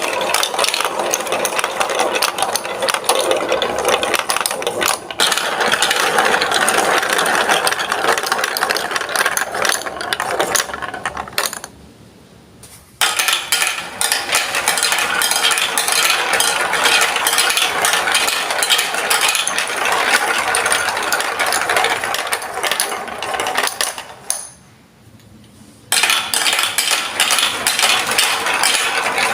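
Marbles rolling and clattering down a Lego Duplo block track, a dense stream of rapid plastic clicks and rattles. It dies away twice, around twelve and twenty-five seconds in, and starts again abruptly.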